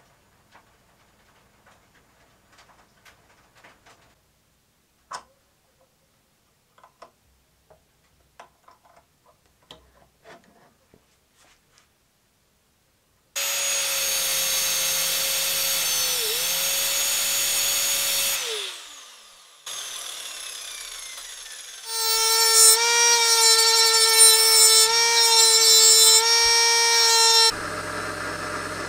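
Faint clicks of small metal parts being handled. Then an angle grinder with a thin cut-off disc cuts through a steel rod held in a vise for about five seconds, its pitch dipping once, before it winds down. Later comes a loud machine whine with strong overtones, and near the end a lower, steadier running sound as a lathe drills into a spinning part.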